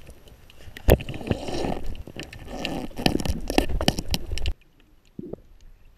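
Underwater sound: a rushing water noise dense with scattered clicks and knocks, with one sharp loud knock about a second in. It drops away abruptly about four and a half seconds in, leaving only faint clicks.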